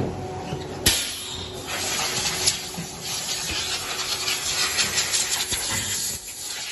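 Slipper moulding machine at work: a sharp clack about a second in, then a steady hiss with light rattling and ticking that drops off near the end.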